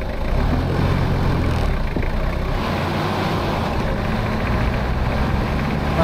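Toyota Hilux driving at speed on a paved highway, heard from outside the vehicle: a steady rush of road and wind noise over a low, even engine hum.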